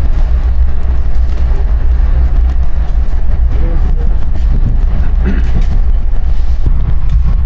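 Passenger train running, a loud steady low rumble heard from inside the carriage, with faint voices in the background.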